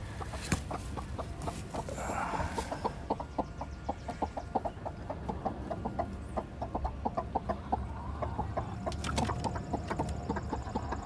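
Broody hen sitting on eggs, clucking in a long run of short, evenly repeated notes, several a second, from about three seconds in.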